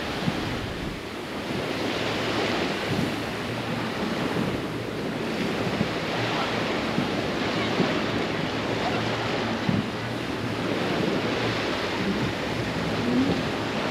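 Baltic Sea surf washing onto a sandy beach: a steady rush of breaking waves that slowly swells and eases, with wind.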